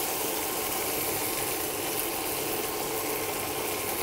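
Ground onion-tomato paste frying in hot melted butter in a nonstick pan, with a steady sizzle.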